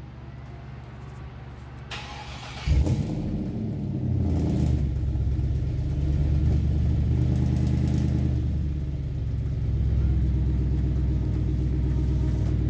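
Supercharged 6.0-litre LS V8 starting up about three seconds in, then running steadily through a single 4-inch exhaust with a diesel-truck muffler, its low rumble swelling slightly a couple of times.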